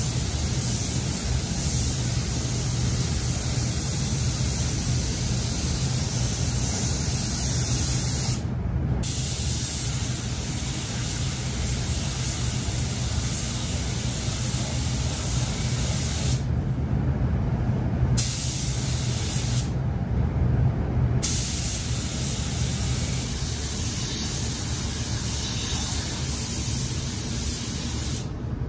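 Paint spray gun hissing steadily as it sprays base color, cutting out briefly three times as the trigger is released between passes. A steady low hum runs beneath.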